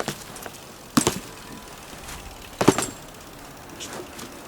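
BMX bike being handled: two sharp knocks, about a second in and again about two and a half seconds in, with a few fainter taps between.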